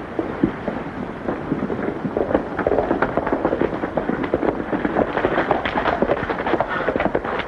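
Several horses galloping, their hoofbeats a dense, continuous clatter.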